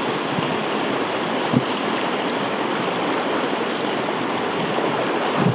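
River water rushing steadily over rocks in a shallow rapid, with one brief low thump about a second and a half in.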